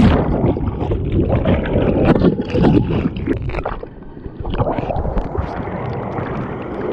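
Glacial stream water splashing and gurgling right around a camera held at and under the surface, with choppy slaps and sloshes. The sound goes dull and muffled at the start as the camera goes under the water.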